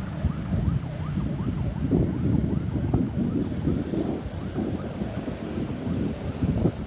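Ambulance siren in a fast yelp, its pitch rising and falling about three times a second, over a loud low rumble of wind on the microphone.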